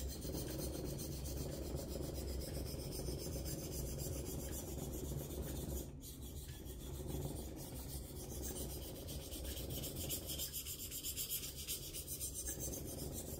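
Steel knife edge being stroked back and forth on an oil-wetted natural whetstone, a continuous gritty rasp rising and falling with each stroke, the strokes growing quicker and more distinct a couple of seconds from the end. This is the coarse grinding stage on an abrasive stone, worked until a burr forms on the edge.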